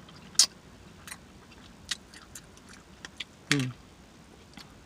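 Close-up mouth sounds of someone eating barbecue chicken: a run of sharp, wet lip smacks and chewing clicks, the loudest about half a second in, and a heavier smack with a brief low falling note about three and a half seconds in.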